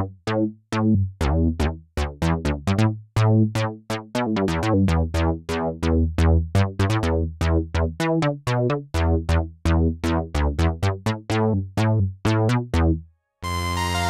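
Sequential Take 5 analog polysynth playing a plucky preset: short notes that fade fast, several a second in a busy rhythmic pattern over deep bass notes. About 13 seconds in the notes stop briefly and a different preset starts with a sustained held chord.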